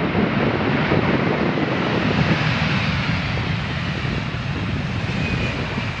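Jet engines of a four-engined Boeing 747 freighter running as it lands and rolls out along the runway: a loud, steady rushing noise with heavy low rumble.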